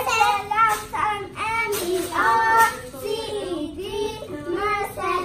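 Young girls chanting a cheer in a sing-song rhythm, their voices rising and falling in short phrases.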